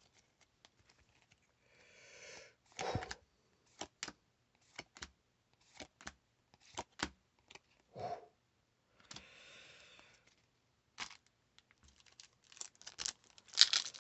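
Trading cards handled and flipped through by hand: an irregular run of soft clicks and taps as the cards knock against each other. There are two short rustles, one about two seconds in and one a little past the middle, and the taps come closer together near the end.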